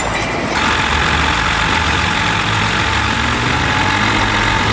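Heavy machine's diesel engine running steadily under a constant noisy hiss, which gets louder about half a second in.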